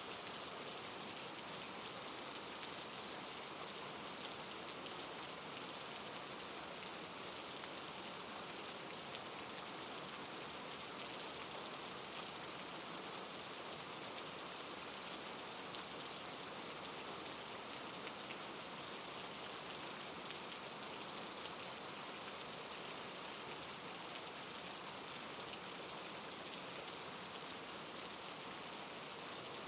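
Steady soft rain: an even hiss of falling rain with fine scattered drop patter on a surface.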